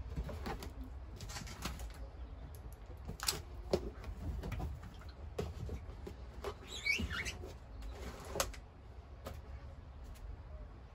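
Scattered light knocks and clicks of small plastic plant pots and a tray being handled, over a low steady rumble, with one short high chirp about seven seconds in.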